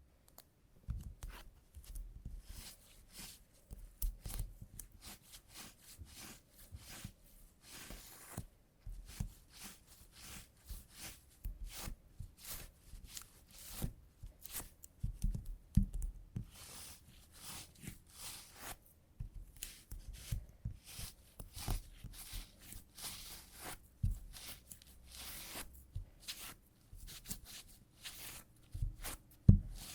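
Adhesive tape pressed onto trouser fabric and peeled off again and again to pull out embedded cat hair: a run of irregular sticky crackling peels, rustles and light taps.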